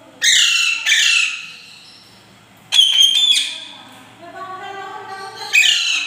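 Alexandrine parakeet giving loud, harsh squawks: two in the first second and a half, a cluster about halfway, and another near the end, with quieter, lower calls between them.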